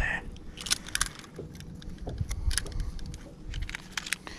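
Irregular metallic clicks and clinks as a handheld digital fish scale and its metal grip clip are handled and fiddled with, over a low rumble of wind on the microphone.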